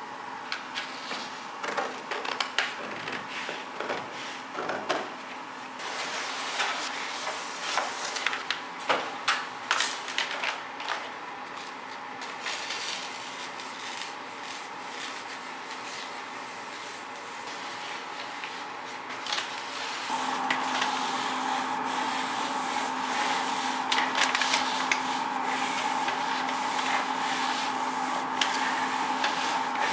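Wallpaper being handled and rubbed flat by hand onto a wall, with crinkling and scraping strokes of the paper, busiest in the first half. A steady hum runs underneath and grows louder about two-thirds of the way in.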